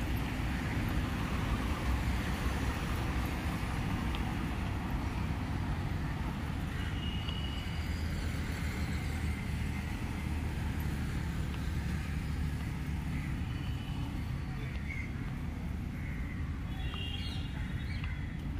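Steady city street traffic noise: a low rumble of passing vehicles under a constant hiss. A few faint, short high tones come through about seven seconds in and again near the end.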